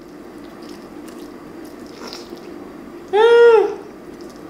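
Someone chewing a mouthful of saucy fried chicken with faint wet mouth clicks, then a short hummed "mmm" of enjoyment about three seconds in, rising and falling in pitch.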